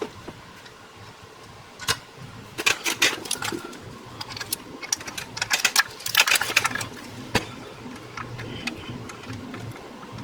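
A socket ratchet running in the water-pump bolts on a 5.7L Hemi V8, in two quick bursts of rapid clicking, with a couple of single metal knocks between them. A low steady hum runs underneath.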